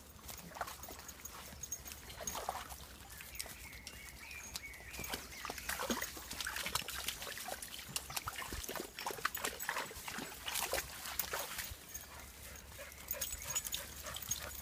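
Small dogs snuffling and splashing around a muddy woodland puddle, with short crackles and rustles in leaf litter that are busiest in the middle.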